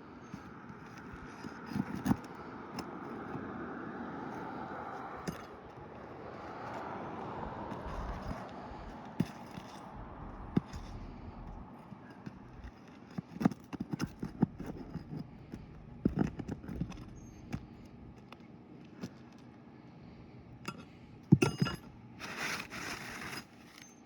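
Scattered sharp clicks and knocks with scraping as a nail is pried out of brittle asphalt roof shingles, ending in a short rustling scrape as the old shingle is pulled free.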